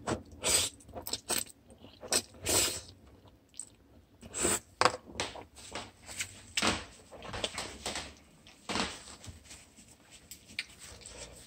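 Eating sounds from a bowl of instant noodles: irregular clicks and taps of chopsticks against a plastic tub, mixed with short slurping and mouth noises, a dozen or so scattered through the stretch.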